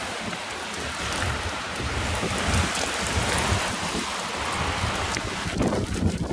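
Storm wind and rain, with gusts buffeting the microphone in a rumble that rises and falls.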